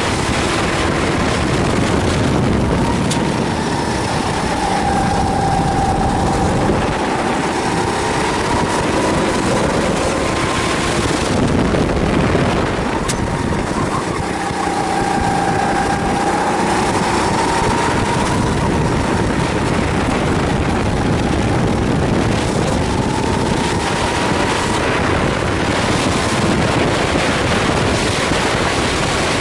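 Kart engine running hard on a hot lap, its pitch dipping and climbing again several times as the driver lifts for corners and accelerates out of them. Wind noise rushes over the onboard microphone.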